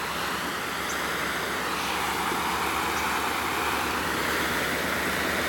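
Steady rushing, splashing noise of water as a car drives through deep floodwater on a road, slowly growing louder.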